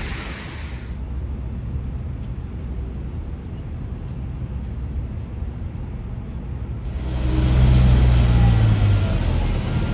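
Road traffic: a low engine rumble, then louder engine and tyre noise from a vehicle passing close about seven seconds in.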